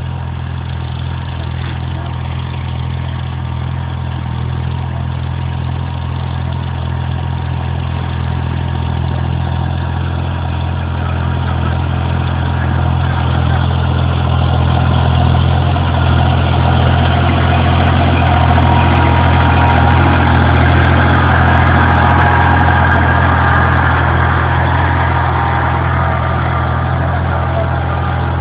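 Kubota compact tractor's diesel engine running steadily under load while pulling a tine cultivator through the soil. It grows louder as the tractor comes close and is loudest a little past the middle.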